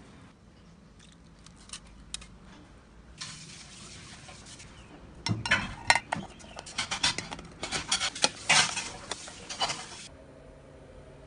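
Metal tiers and lid of an engraved metal food carrier clinking and scraping as it is stacked and closed, with a dense run of sharp clatter over the second half.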